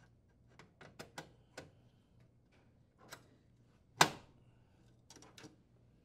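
Metal telescoping warming-drawer slide rail clicking and rattling as it is seated and pulled out, with one sharp, louder metallic click about four seconds in.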